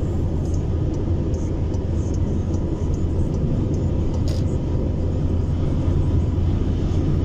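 Steady low drone of a vehicle cruising at motorway speed, heard from inside the cab: engine and tyre noise with no change in pitch or level.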